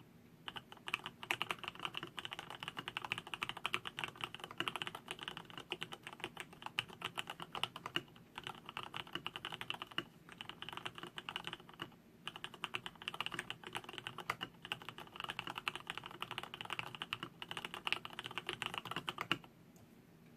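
Typing on a custom mechanical keyboard with an acrylic case and plate, lubed Cherry MX Black linear switches and PBT keycaps: a fast, dense run of keystrokes with a few short pauses, stopping about a second before the end.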